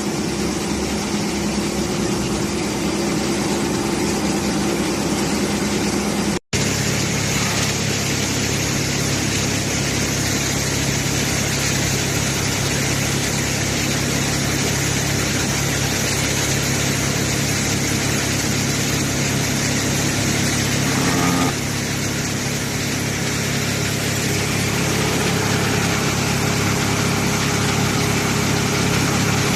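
Hydraulic silage baler-bagger running, a steady machine hum. The sound cuts out for an instant about six seconds in, and the hum changes slightly about twenty-one seconds in.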